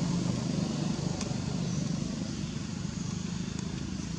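Steady low drone of an engine running, holding an even pitch, with a couple of faint ticks over it.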